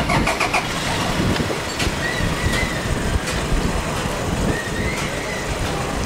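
Busy outdoor noise with a steady low rumble, a quick run of clanks right at the start, and a few short high tones.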